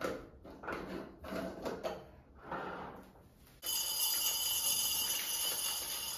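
A metal screw lid handled and twisted on a glass storage jar, with short scrapes and knocks. About halfway through, dry chana dal (split Bengal gram) starts pouring from a plastic bag into a glass jar: a steady, loud rattle of grains hitting the glass, with a bright ringing from the jar.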